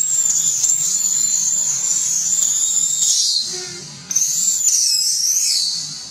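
Baby macaque screaming: a long, high-pitched held scream that falls away about three seconds in, then a second wavering scream that starts abruptly about a second later and fades toward the end.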